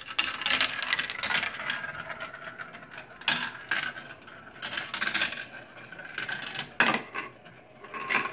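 Marbles rolling down a plastic marble run: a steady rolling whir through the tracks, broken by sharp clacks as they drop through pieces and hit the parts, the loudest about seven seconds in.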